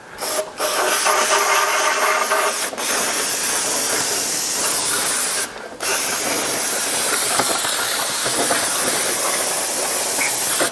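Aerosol can of solvent cleaner spraying a long hiss into an engine crankcase's oil passages, flushing them clean. The spray breaks off briefly twice in the first three seconds and again for a moment a little past halfway.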